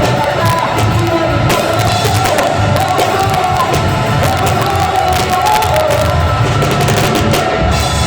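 A live band playing a gospel worship song steadily and loudly, with bass, drums and cymbals, and crowd voices cheering along.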